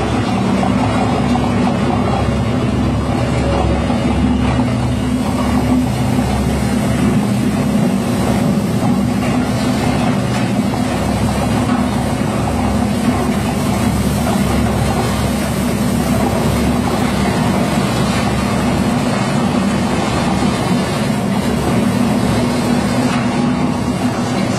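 Industrial single-shaft shredder running steadily under load, its toothed rotor grinding through scraps over the steady hum of the drive motor and gearbox.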